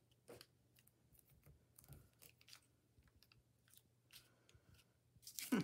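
Faint handling of paper and a rubber stamp: small rubs and taps as the stamp is pressed onto a paper strip and lifted off, with one louder clack just before the end.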